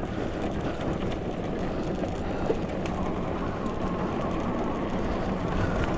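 Fat-tyre ebike and its towed trailer rolling over a rough, muddy forest track: a steady rumble with rattling.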